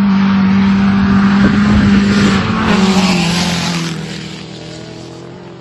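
Two rally cars passing at speed on a gravel stage, engines running hard. The engine pitch drops as they go by about two and a half seconds in, with a hiss of tyres on gravel, then the sound fades as they pull away.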